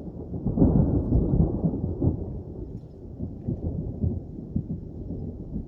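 Rolling thunder: a low rumble that swells suddenly about half a second in, stays loud for a second or two, then slowly dies away.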